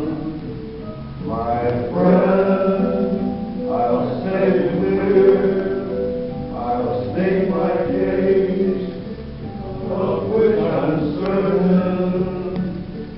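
A group of men singing together, phrases of held notes with short breaks between them every couple of seconds.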